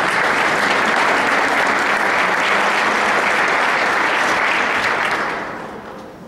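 Audience applauding, steady and then dying away about five and a half seconds in.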